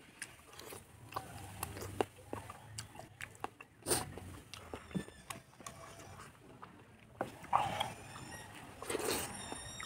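Close-miked chewing and mouth sounds of eating fatty pork and rice: wet smacking with many short clicks, louder bites about 4 s in and near the end.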